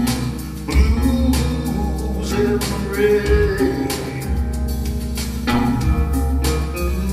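Live blues band playing a slow blues on electric keyboard and electronic drum pads, with a bass line underneath.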